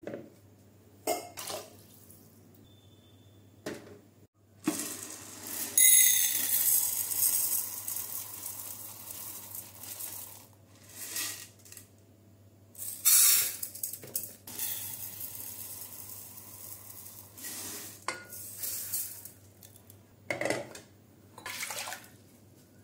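Aluminium pressure cooker vessels knocking and clinking on a steel gas stove, with water running or poured into the cooker for a few seconds at a time, once about six seconds in and again around thirteen seconds.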